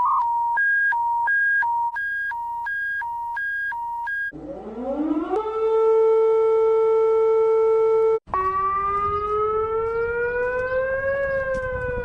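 A run of emergency-alert tones. First comes an alternating two-tone beep, high-low about twice a second, for about four seconds. Then a siren winds up and holds a steady pitch, and after a brief break a siren slowly rises, dips and rises again.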